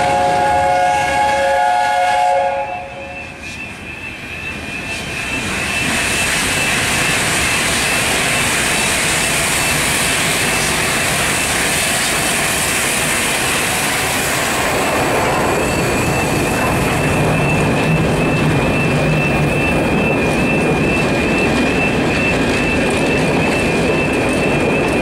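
LNER A4 steam locomotive 60009 Union of South Africa passing over a level crossing with its coaches. It opens with a chord-like chime-whistle blast for about two seconds. From about five seconds in, the rumble and clatter of the engine and carriages swells, with the crossing's warbling alarm sounding over it.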